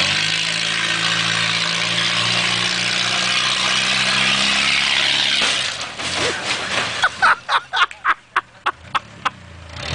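A demolition derby car's engine running under a loud rushing noise for about five seconds. It then falls away to a quick run of about ten sharp bangs and clatters.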